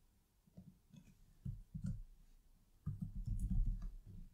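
Faint clicking of a computer keyboard and mouse, scattered short clicks with a quicker run of keystrokes near the end as a short word is typed.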